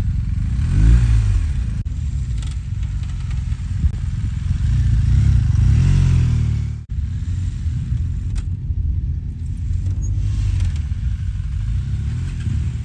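BMW R 1250 GS adventure motorcycles' boxer-twin engines running and revving, the pitch rising and falling about a second in and again around five to six seconds in, with a few abrupt breaks.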